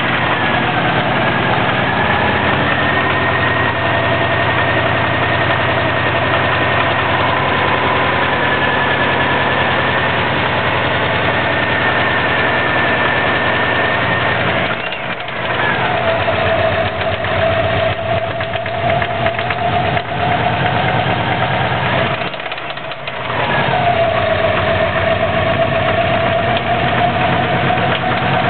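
A 2004 Subaru WRX's turbocharged flat-four engine idling with a fast, even knock, which the owner suspects is rod knock. A steady whine runs over it and briefly drops in pitch and level twice, about halfway through and near three quarters of the way.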